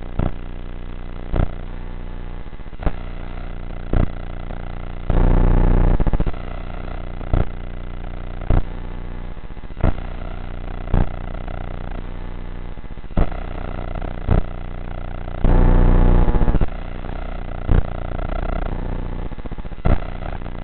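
Steady electrical buzz from an analog FPV video link, broken every second or so by short loud crackles of static and twice by longer bursts of noise lasting about a second.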